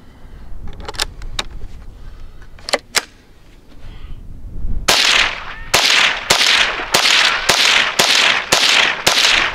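Henry AR-7 semi-automatic .22 LR survival rifle: a few sharp metallic clicks, then about five seconds in eight rapid shots at roughly two a second. Every shot fires and cycles without a stoppage, here with CCI Stinger hyper-velocity ammunition.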